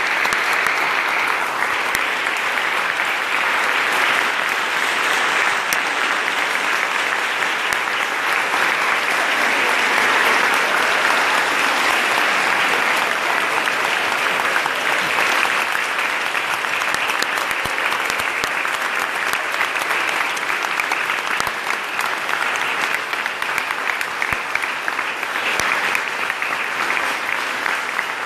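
Large audience applauding, a long, steady ovation of many hands clapping.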